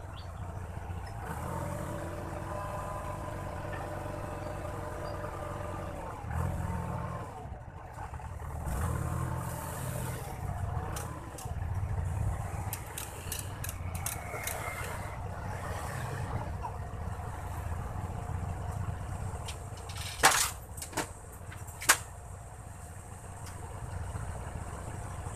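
Boom truck's engine running steadily, with a pitched whine that starts about a second in and stops some five seconds later. Two sharp knocks about two seconds apart near the end.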